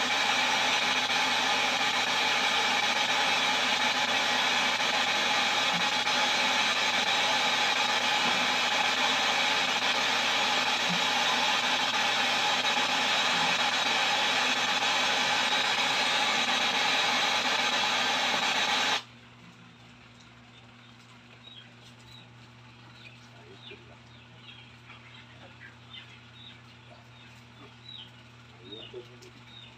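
Sony LED TV's speakers hissing with the steady white-noise static of an untuned channel, shown as snow on the screen. The hiss cuts off suddenly about two-thirds of the way in, leaving quiet room sound with a low steady hum.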